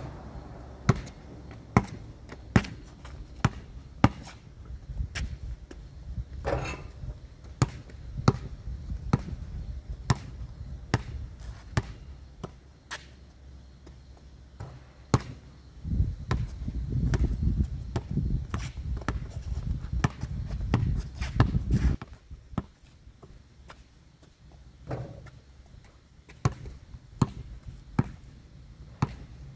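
Sharp knocks repeating at uneven spacing, roughly once a second. A low rumbling noise joins them for about six seconds past the middle.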